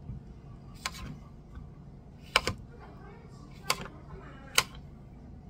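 Ceramic kitchen knife chopping through small cucumbers, the blade knocking sharply on the cutting surface: about five crisp chops, irregularly spaced, two of them close together near the middle.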